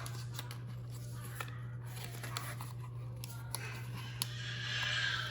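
Handling of product packaging: scattered small clicks and taps, then a rustle of plastic or paper about four and a half seconds in, over a steady low hum.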